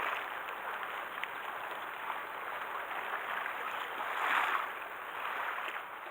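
Sea water sloshing and splashing in a steady wash, with a louder surge about four seconds in.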